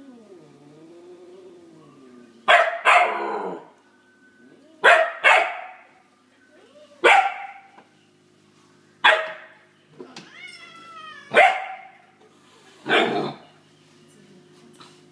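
A 12-week-old Akita puppy barking at a cat: eight sharp barks, some in quick pairs, about every two seconds. A low wavering growl from the cat fades out in the first two seconds.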